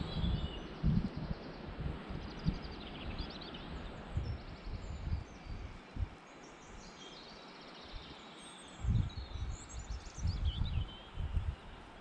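Small birds singing short trills and chirps, over irregular low thumps of wind buffeting the microphone.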